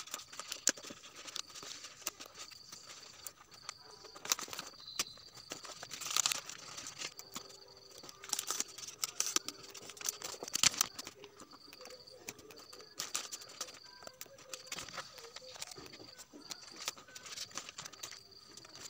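Sheets of cellophane bouquet wrapping paper crinkling and rustling as they are folded and wrapped around a bouquet, in irregular bursts with louder crackles now and then.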